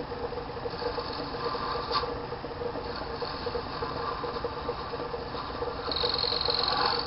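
A small lathe running steadily with a hand-held cutting tool scraping bone as the pawn is turned; the scraping hiss comes and goes, louder near the end.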